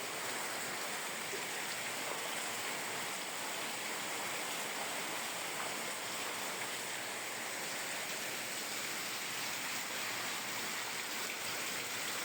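Steady rushing noise of a hurricane's wind and driving rain, holding level without a break.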